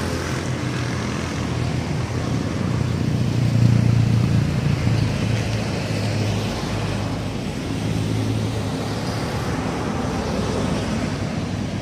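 Road traffic passing on a highway: engine and tyre noise from cars, a motorcycle tricycle and a bus, steady with a swell about four seconds in.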